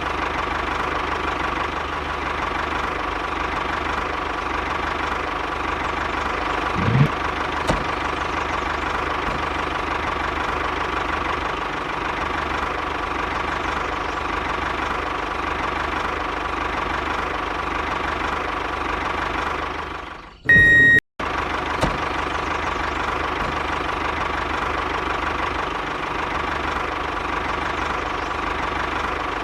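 A small machine runs steadily with a continuous whine, as from a model tractor's drive. It breaks off briefly about two-thirds of the way through, with a short high beep-like tone, then carries on.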